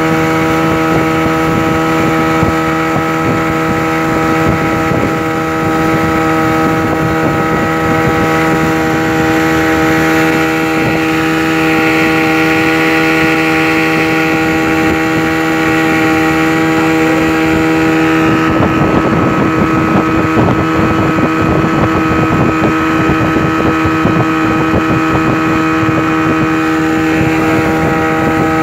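Speedboat engine running steadily at speed, a constant multi-pitched hum, with water rushing and splashing along the hull. About two-thirds of the way through, a rougher, choppier rushing noise joins in.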